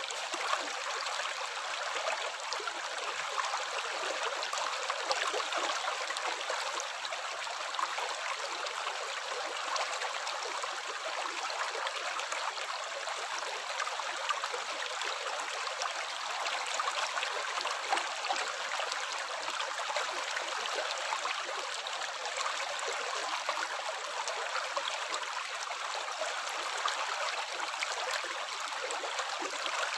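Water running steadily: an even rush with many small splashes and trickles.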